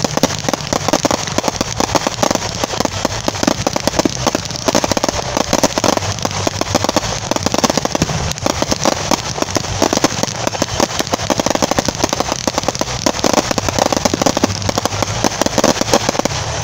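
Aerial fireworks bursting in a dense, unbroken crackle of many rapid small pops and bangs.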